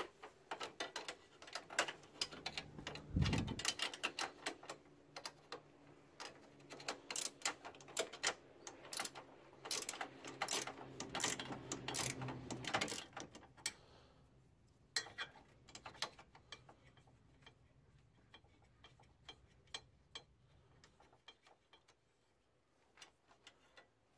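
Ratcheting 10 mm wrench clicking in quick runs as it backs off the nuts on the headlight motor's mounting bolts, with one dull thump about three seconds in. The clicking comes in dense runs through the first half and grows sparser after that.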